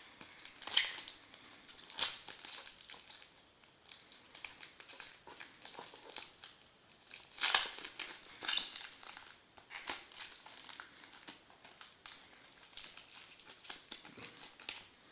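A foil trading-card pack being torn open and crinkled, with irregular crackles and rustles of wrapper and cards being handled; the loudest crackle comes about halfway through.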